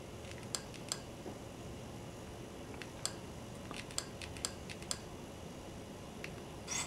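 A dozen or so faint, sharp clicks at irregular intervals, the buttons of a handheld remote control being pressed to step through on-screen menus, over a steady low hiss. A short rustle comes near the end.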